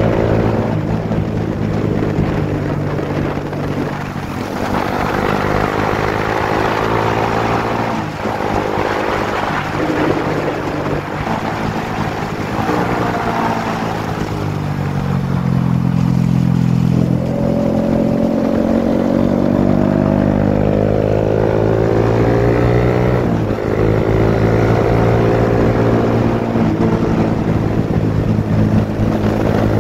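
Suzuki GSX-S150's single-cylinder four-stroke engine running at road speed, its pitch rising and falling repeatedly with a few brief dips.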